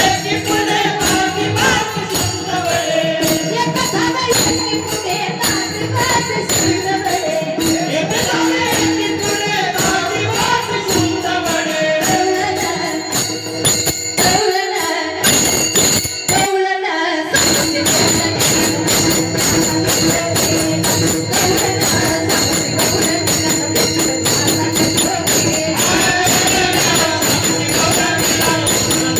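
Devotional kirtan music: a melody over a steady held drone, with jingling metal percussion keeping a fast, even beat. The music cuts out briefly about halfway through, then resumes.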